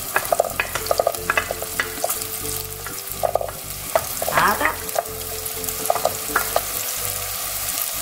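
Diced carrots and potato pushed off a plate with a spoon into a pot of hot olive oil and onion. The oil sizzles steadily, while the pieces drop in with repeated clatters and the spoon scrapes and clinks against the plate and pot, with a short squeaky scrape about halfway through.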